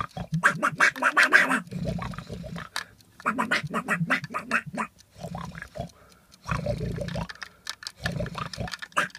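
A person's voice making animal-like noises instead of words, in short bursts with brief pauses between them.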